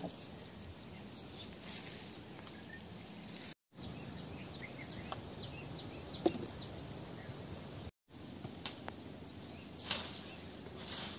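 Faint outdoor ambience of scrub forest: a steady hiss of insects with a few short bird chirps, and brief rustles of brush near the end. The sound cuts out twice for a moment.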